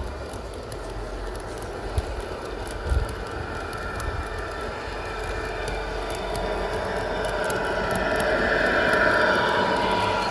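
0 gauge model train running on garden track, its motor and wheels growing louder as it approaches, loudest near the end, with light clicking from the rails.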